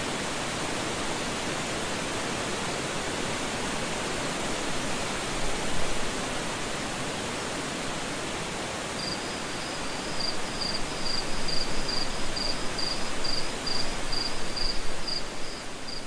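Steady, even rush of a waterfall's falling water. From about halfway through, an insect chirps over it in a regular run of short, high chirps, about two a second.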